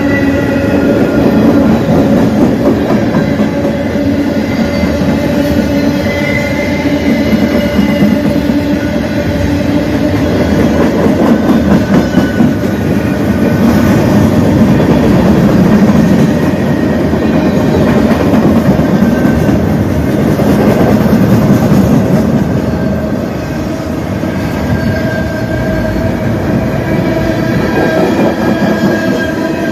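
A long CN freight train's cars rolling past, their wheels making a continuous loud rumble and rattle on the rails, with thin, steady whining tones from the wheels above it.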